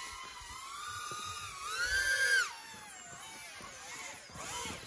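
Shendrone Squirt FPV quadcopter's motors and propellers whining, the pitch rising and falling with the throttle. The whine is loudest about two seconds in, where it climbs in pitch and then drops sharply, and it rises again near the end.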